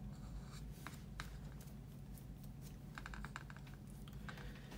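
Faint small clicks and light scratching from a paintbrush and hands working at an aluminium paint palette, with a short run of quick ticks about three seconds in. A low steady hum sits underneath.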